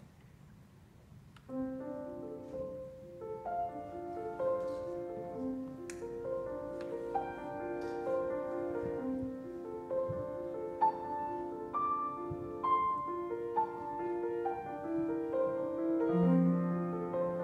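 Grand piano played solo: after a short quiet pause, a piece begins about a second and a half in, with a steady flow of notes and a low bass note held near the end.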